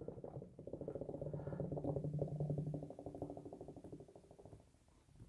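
Nitro beer being hard-poured from a can held upside down in a glass, with a rapid pulsing gurgle as the can empties. The gurgle fades out about four and a half seconds in.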